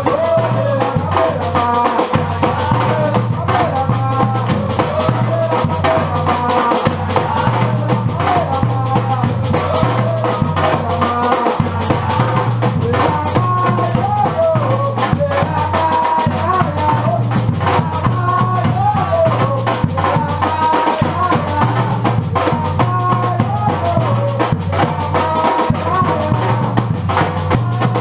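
Batucada-style percussion group playing a steady, driving rhythm with deep bass drums and snare hits, with a melody running over the drumming.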